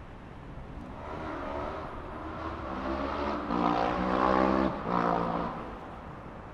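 A motor vehicle's engine passing close by. It swells up to a loud peak, cuts out for a moment, comes back briefly, then fades into the traffic hum.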